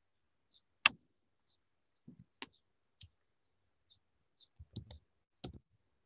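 Scattered sharp clicks and a few soft knocks, some with a low thump under them. The sharpest click comes about a second in, and a cluster of knocks comes near the end.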